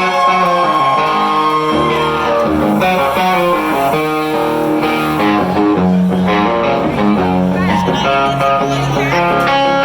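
A live rock band's guitar playing the opening of a song, changing chords every half second or so, with a high held note at the start that ends about two seconds in.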